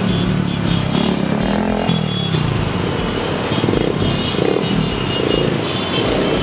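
Motorcycle engines running, with background music playing.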